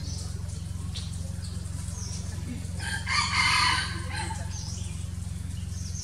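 A single loud call from a large fowl, lasting about a second, about three seconds in. Short high chirps of small birds come and go over a steady low hum.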